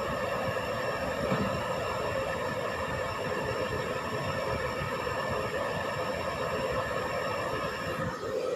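Hair dryer running steadily, a fan rush with a motor whine over it; its sound shifts near the end.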